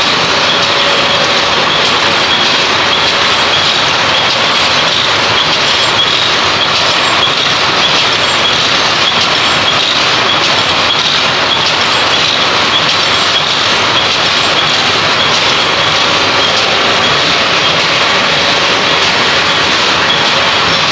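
Power looms weaving plastic mats, running with a loud, steady mechanical clatter.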